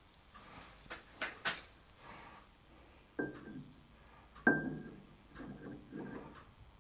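Metal parts being handled: light clicks, then two sharp metallic clinks with a brief ring about three and four and a half seconds in, followed by softer knocks.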